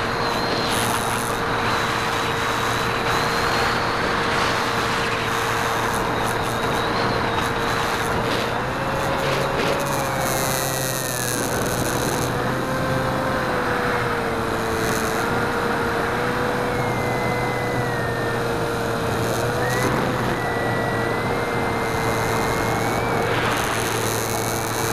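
Electric motor and propeller of a Skywalker 1900 FPV plane running in flight, heard from the onboard camera: a steady whine that rises a little about nine seconds in and settles back, under heavy rushing airflow noise.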